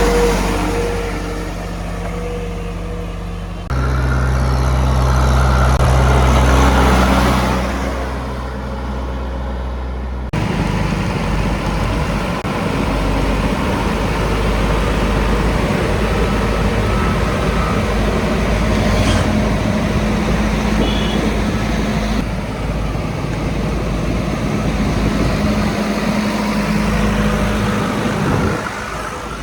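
Heavy diesel engines of construction machinery running steadily, their sound changing abruptly about 4 and 10 seconds in, and again later, as the footage cuts between machines.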